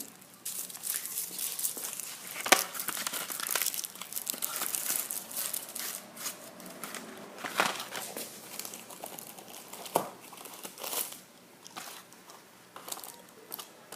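Packaging of a pack of firecrackers crinkling and tearing as it is opened and handled, in irregular crackles that are busiest over the first half and grow sparser toward the end.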